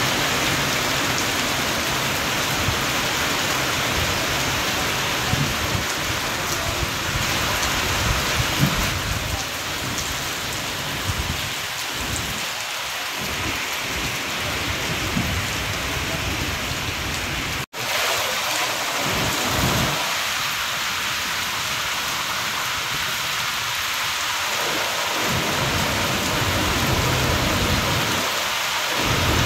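Heavy rain falling steadily, a dense hiss, with a low rumble that swells and fades. The sound drops out for an instant just past halfway.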